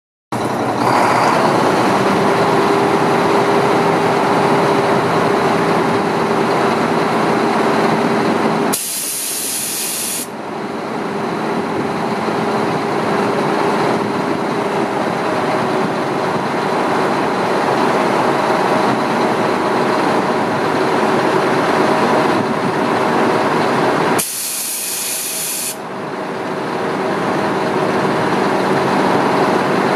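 1995 Mack RD688S dump truck's diesel engine running steadily, with a steady hum, while the hydraulic hoist raises the dump body. Two loud air hisses of about a second and a half each come about 9 and 24 seconds in.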